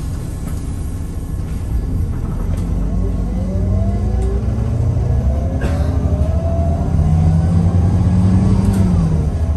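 Mercedes-Benz O500LE CNG bus heard from inside the cabin as it gathers speed: a low engine and drivetrain rumble grows louder under rising whines that fall back near the end. There is a single knock about halfway through.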